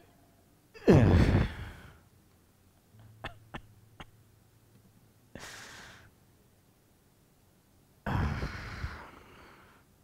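A man's pained, heavy breathing: a loud gasping groan that falls in pitch about a second in, a breathy exhale near six seconds, and another loud gasping breath about eight seconds in, the sounds of a man suffering from a stab wound. A few light clicks come between three and four seconds.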